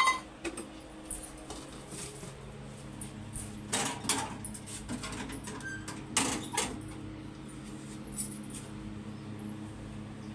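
Intermittent knocks and clinks of steel kitchen utensils and dishes being handled, loudest in two short clusters about four and six seconds in, over a steady low hum.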